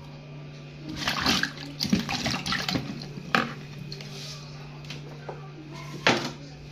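Handling noises at a stainless steel kitchen sink while green bananas are peeled with a knife: a few seconds of clattering and rustling, then a sharp knock near the end as the knife is set down on the counter. A steady low hum runs underneath.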